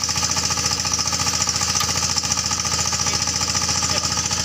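Small stationary engine running steadily at constant speed, with a rapid, even pulsing beat.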